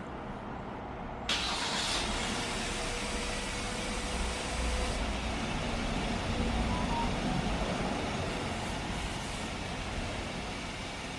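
Kia Bongo 3 LPG truck engine running. It comes in abruptly about a second in, then settles into a low, steady idle rumble.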